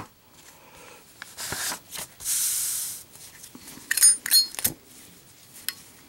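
Zippo lighter being handled: soft rustling, then about four seconds in a few sharp metallic clicks with a bright ring as the lid is flipped open and the flint wheel is struck to light it.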